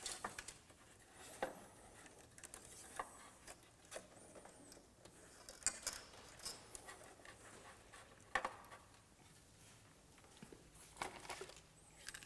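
Faint handling noise from wiring and plastic parts in a car's engine bay: a handful of small clicks and taps spaced a second or two apart, with light rustling between them.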